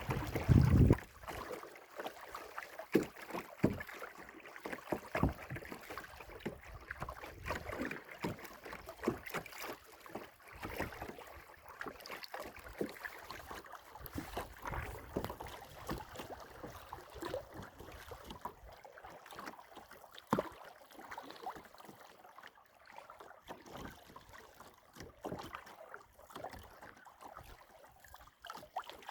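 Kayak paddling on a lake: the paddle dipping and water splashing and dripping in short, irregular strokes. A loud low rumble in the first second, then steady lapping and splashes.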